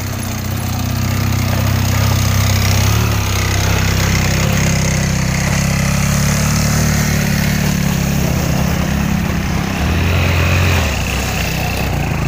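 A small engine running steadily, a loud low pulsing drone.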